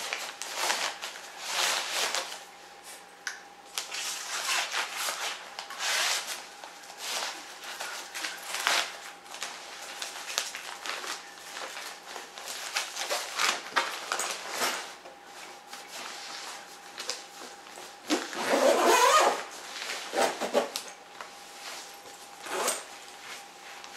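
Rustling and scraping of a padded nylon rifle case as the two halves of a takedown .22 rifle are slid into it and the case is closed and zipped, a series of short handling noises with a longer, louder one about three-quarters of the way through.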